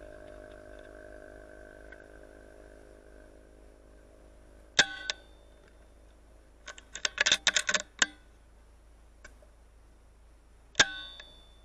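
Two sharp air-rifle shots, each with a brief metallic ring, about six seconds apart: the first about five seconds in, the second near the end. Between them, around seven to eight seconds in, comes a quick cluster of about a dozen knocks and rustles. A steady hum fades out over the first three seconds.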